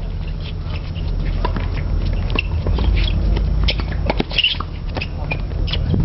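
Tennis rally on a hard court: sharp racket-on-ball hits and the players' shoes squeaking and scuffing on the court surface, over a steady low wind rumble on the microphone.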